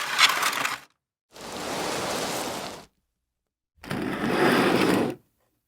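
Three separate short sound effects, each a burst of noisy hiss lasting about a second or a little more and cut off into dead silence; the first is crackly, the second an even hiss.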